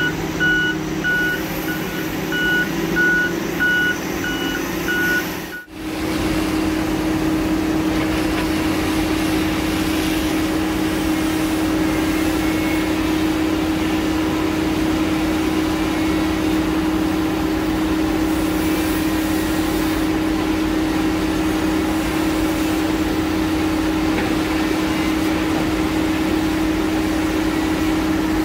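Heavy equipment's backup alarm beeping at an even pace over a diesel engine for the first few seconds. After a sudden cut, a heavy diesel engine runs with a steady, unchanging hum.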